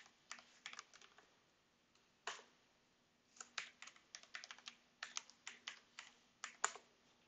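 Faint keystrokes on a computer keyboard as a login name and then a password are typed: a few keys near the start, a single stroke a little after two seconds, then a quick run of keystrokes over the last four seconds.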